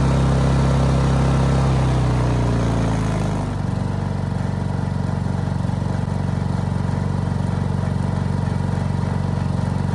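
Honda EU2200i inverter generator's single-cylinder engine running steadily. Its speed drops over about a second, two to three seconds in, as eco mode is switched on, and it then runs steadily at the lower speed.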